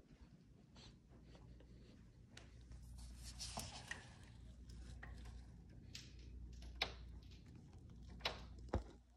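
Faint room tone: a low steady hum with scattered soft clicks and rustling, handling noise from a phone being carried and turned.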